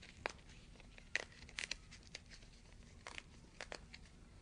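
Faint, scattered crackles and ticks of a SpiderTech pre-cut kinesiology tape strip and its paper backing being handled and torn along the perforated line.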